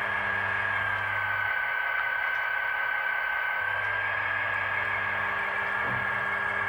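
Battery-powered HO-scale Walthers GP15-1 diesel locomotive running, its small electric motor and gears giving a steady high whine over a hiss and a low hum. About a second in, the whine dips slightly in pitch and the low hum drops out, then both come back as the locomotive changes speed and direction.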